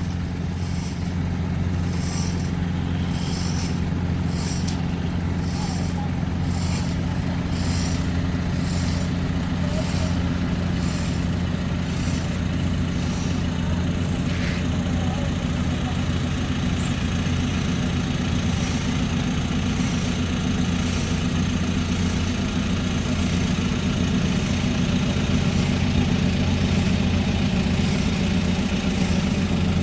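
Boat's inboard engine running steadily during a gearbox test, with a faint regular ticking over the first half; the propeller shaft is newly replaced and the engines freshly serviced.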